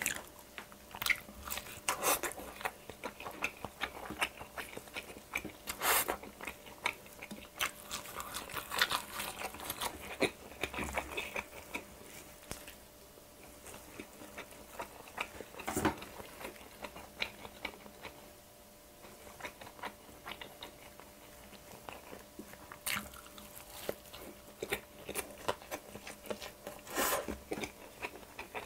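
Close-miked biting and chewing of a pan-fried Korean pancake (pajeon): irregular crisp crunches and wet chewing, with a few louder crunches and some quieter stretches.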